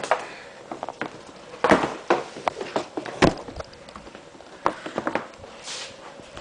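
Scattered clicks and knocks from a Macintosh Performa 475's plastic case being handled and opened, with a short rustle near the end.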